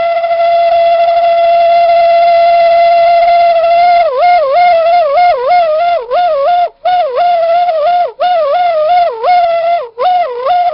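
Toyotomi Laser Burner kerosene heater resonating with a loud steam-whistle-like tone, a sign that the burner is short of combustion air. The tone holds steady for about four seconds, then wobbles up and down in pitch two or three times a second, cutting out briefly a few times.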